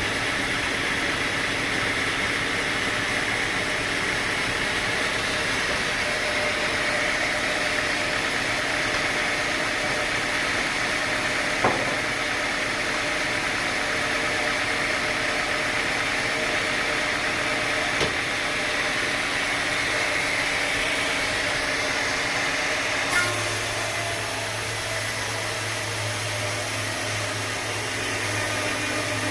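Sawmill machinery running steadily, with three short knocks spread through it; about three quarters of the way in the sound shifts and a low steady hum comes in.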